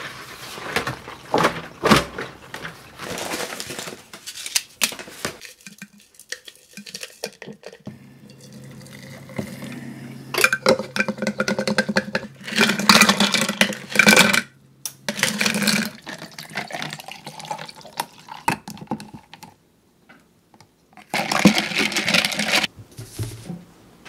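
Hot water poured from an electric kettle into a glass jar, among other kitchen sounds of running water and glass and dishes knocking. The sounds come in separate bursts, with a short quiet gap near the end.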